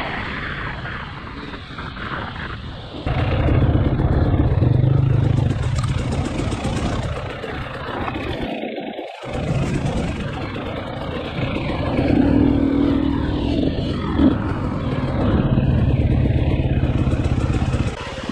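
KTM 300 XC-W TPI's single-cylinder two-stroke engine riding a rough dirt trail, the throttle opening and closing so it swells and eases off several times, with the bike clattering over the ground. It drops back near the end as the bike slows.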